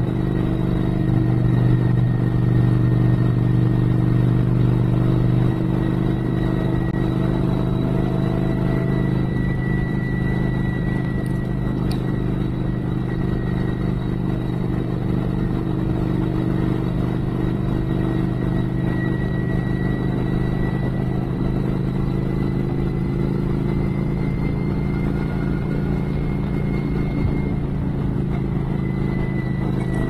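Motorcycle engine running steadily at cruising speed on the road, a little louder for the first five seconds or so.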